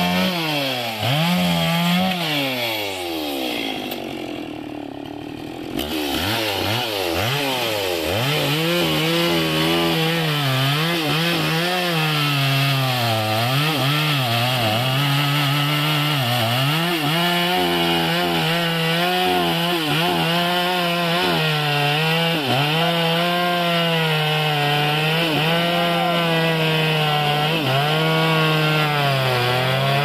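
Two-stroke chainsaw cutting through a tree trunk, the engine pitch rising and sagging as the chain works in the wood. About four seconds in it drops briefly to a lower idle, then revs back up into the cut about six seconds in.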